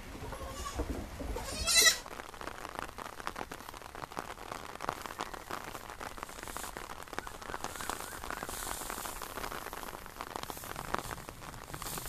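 Goats bleating, ending in one loud, high bleat about two seconds in. Then a steady crackling patter and rustle of rain and dry straw being pulled from a haystack.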